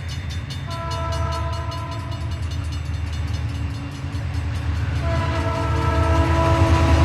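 A train approaching with a steady low rumble and a fast, regular clatter that grows louder. Its horn sounds twice as several notes together: a blast of under two seconds about a second in, and a longer one starting about five seconds in.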